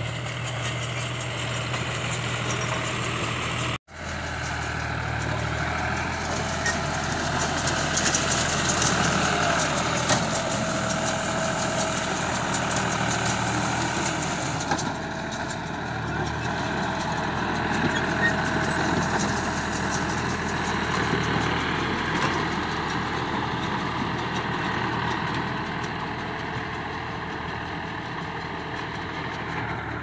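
John Deere 5103S tractor's three-cylinder diesel running steadily under load as it pulls a round baler, with the baler's pickup and chamber clattering as they take in rice straw. The sound cuts out briefly about four seconds in.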